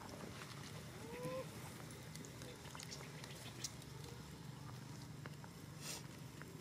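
Baby macaque giving one short, faint rising call about a second in, over a steady low hum and scattered faint ticks.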